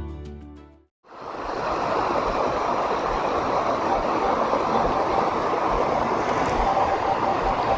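Background music fades out at the start, and after a brief gap the steady rush of a waterfall and stream fades in. A faint steady hum joins near the end.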